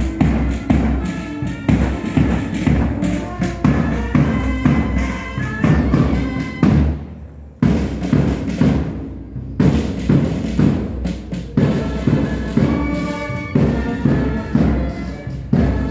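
Marching band playing a march: a drum beating a steady rhythm under a melody of sustained band notes, with a short break about seven seconds in before it strikes up again.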